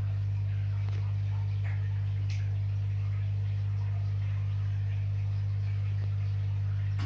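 Steady low electrical hum, with a few faint short clicks about two seconds in.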